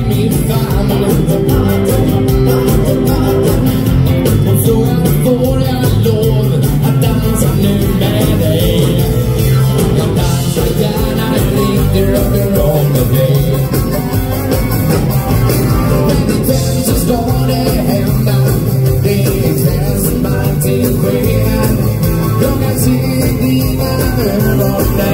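Live dansband music played loud and steady: a male lead vocal over stage piano and keyboards, electric guitar, bass and a drum kit.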